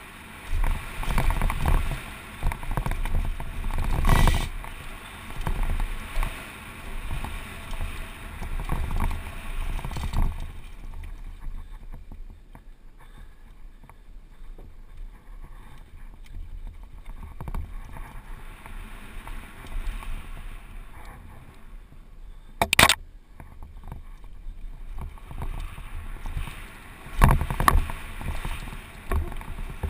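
Giant Glory downhill mountain bike ridden fast down a dirt trail: tyres rumbling over gravel and the bike rattling over bumps, with wind buffeting the helmet camera's microphone. Rough and busy at first, quieter in the middle stretch, with a sharp loud knock a little past the middle and more heavy knocks near the end, as from jump landings.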